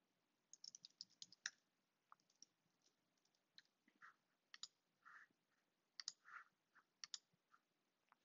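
Faint computer keyboard typing and mouse clicks: a quick run of keystrokes about half a second in, then scattered single clicks.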